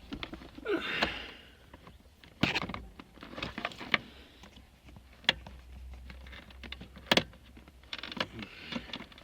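A steel bolt being worked at its hole by hand and tool: scattered sharp metallic clicks and short scrapes and rattles. The bolt won't thread in, probably because it is going in cross-threaded.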